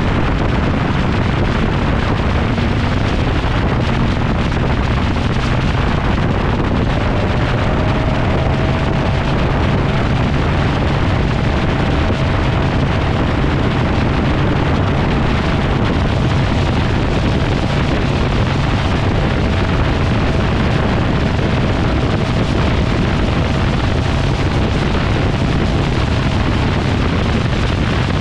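A 1971 GMC Sierra pickup's 383 stroker V8 running at a steady cruise, a low, even exhaust drone mixed with heavy wind rush over a microphone mounted on the outside of the moving truck.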